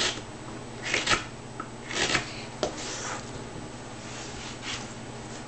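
Hand carving knife slicing through wood, a series of short scraping cuts, irregularly spaced about one a second, as shavings are taken off a flat wooden board.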